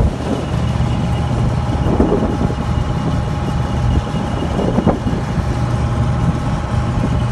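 Old Carrier gas package unit running: a steady machine drone with a faint, constant high-pitched whine over it.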